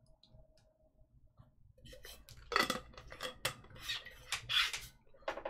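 Short sharp clinks and clattering handling noises, picking up about two seconds in, as a drink of water is taken.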